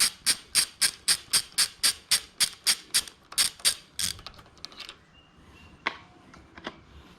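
Ratchet wrench clicking steadily, about four clicks a second, while a bicycle crank bolt is unscrewed. The clicking stops about five seconds in, and two single clicks follow.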